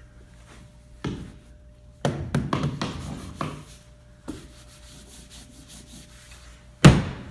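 Open hand slapping and knocking on a drywall-covered pillar: one knock, then a quick run of several, another single knock, and a final slap, the loudest, near the end.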